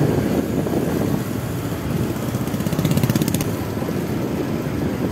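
A motorcycle engine running close by, a steady pulsing rumble, with a brief run of rapid ticking about three seconds in.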